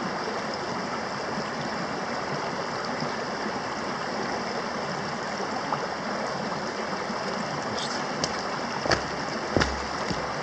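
A small rocky creek running and splashing over stones, a steady rush of water close to the microphone. Near the end come a few sharp knocks as the angler steps up beside the camera.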